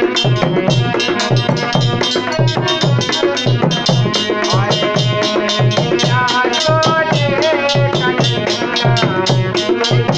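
Bhajan (Hindu devotional) music: a steady drum beat with a melody line over it and busy hand percussion.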